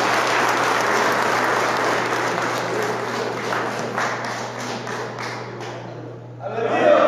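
A crowd clapping by hand, the applause thinning out and fading about six seconds in; crowd voices rise again just before the end.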